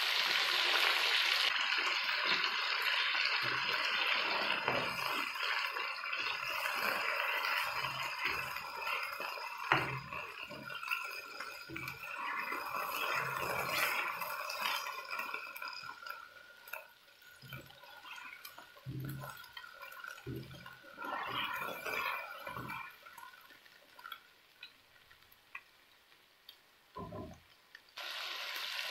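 Mutton pieces sizzling in a non-stick wok while a spatula stirs them, scraping and knocking against the pan. The sizzle is dense for the first half, then dies down to a faint hiss with scattered spatula scrapes.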